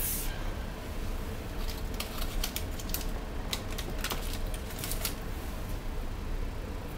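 Scattered light clicks and taps of a table knife cutting pats of butter on its paper wrapper and setting them on toast on a glass plate, over a steady low hum.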